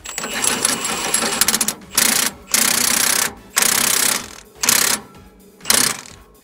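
Hand ratchet wrench clicking on its back-strokes while tightening the conveyor-chain tensioner bolt of a manure spreader: a long run of rapid clicks, then five short bursts about a second apart.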